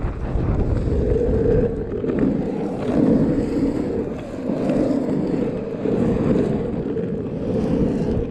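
Carver surf skate's urethane wheels rolling on asphalt, a steady rumble that swells and dips as the board pumps through the rollers and turns.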